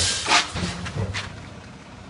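Rice vertical packing machine running: a steady low hum with short bursts of hiss and clatter, one at the start and another about a second later, as the machine cycles through its bags.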